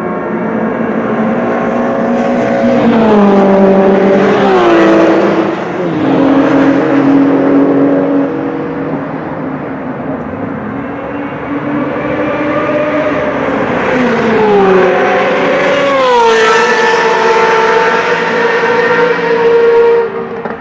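High-performance sports cars passing at speed on a race track, engines at high revs. Each engine note drops in pitch as a car goes by, once about four seconds in and again about fifteen seconds in, with another engine holding a steady high note near the end.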